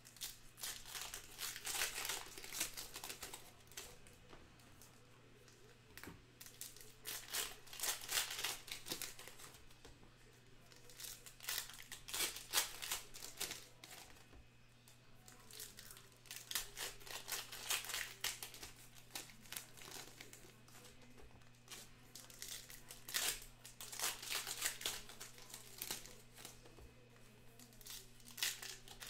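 Foil wrappers of Bowman Sapphire baseball card packs being torn open and crinkled by hand, in repeated bursts of crackling a few seconds apart.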